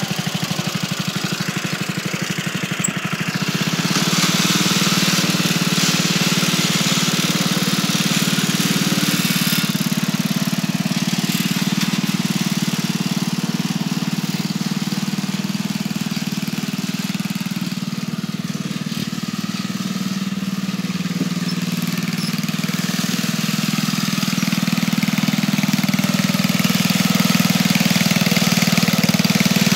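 Dynamark riding lawnmower's small engine running steadily, just revived after sitting for 25 years. It gets louder about four seconds in, eases off a little midway and rises again near the end.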